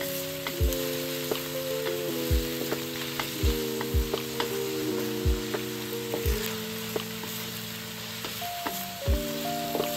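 Minced pork sizzling in hot oil as it is stir-fried, with faint ticks of the spatula against the pan. Lo-fi background music with sustained chords and a soft kick drum plays underneath.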